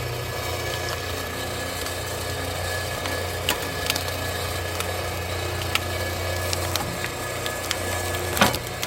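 Electric-motor-driven hydraulic pump of a homemade log splitter running with a steady hum, with scattered sharp cracks of a thick pine log splitting as the ram pushes through it.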